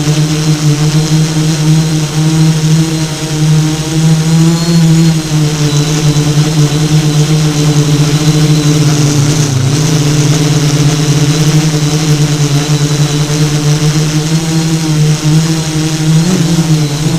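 Motors of an FPV radio-controlled craft running at a steady pitch. The pitch dips briefly about halfway through, then recovers, and wavers near the end.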